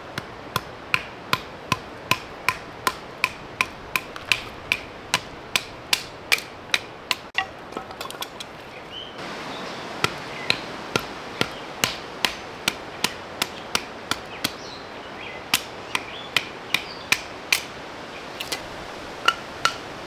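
Repeated hammer-like blows with a short metallic ring, about two to three strikes a second in a steady rhythm, pausing briefly partway through and then going on in shorter runs.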